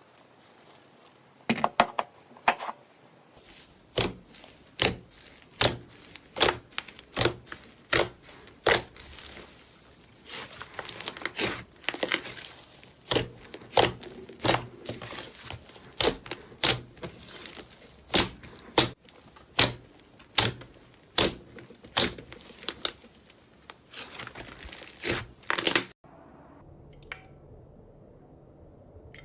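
Slime being pressed and squeezed by hand, giving a sharp crackling pop about once a second for most of the clip, then stopping suddenly near the end.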